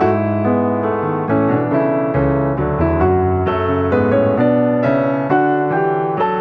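Background music: a piano track playing steady chords with a sustained bass.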